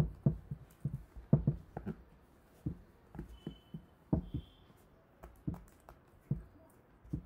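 A spatula stirring glue in a plastic tub, knocking and scraping against the sides in irregular dull strokes, roughly one every half second.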